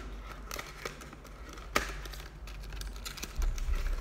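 Small cardboard box being handled and opened: scattered taps and scrapes of cardboard, with one sharp click a little under two seconds in and a brief low rumble near the end.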